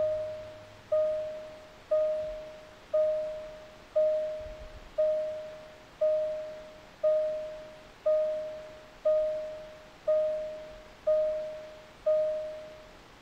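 Car's electronic warning chime dinging about once a second, each ding a single mid-pitched tone that fades before the next, stopping about a second before the end.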